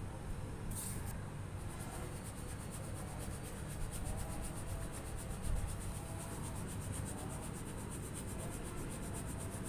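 Damp ground rice flour being sifted through a plastic sieve shaken over a steel plate: a steady soft rubbing and pattering of flour against the mesh and onto the metal.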